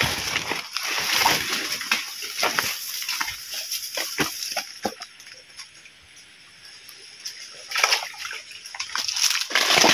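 Footsteps splashing and sloshing through shallow creek water, with irregular knocks and rustles from walking through brush. It goes quieter for a couple of seconds around the middle, then the splashing picks up again near the end.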